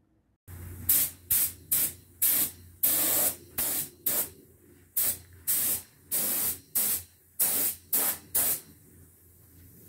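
Compressed-air paint spray gun hissing in short blasts, about two a second, as the trigger is pulled and released over each pass along the MDF cupboard doors. A low steady hum runs underneath.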